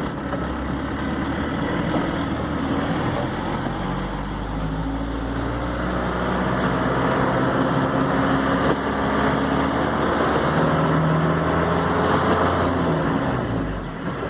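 A motor vehicle's engine running steadily, with an even hiss of road or rain noise over it; it eases off briefly near the end.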